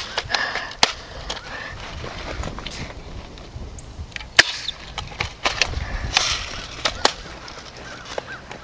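Irregular sharp clicks and knocks, about a dozen, the loudest about four and a half seconds in, over a low rumble.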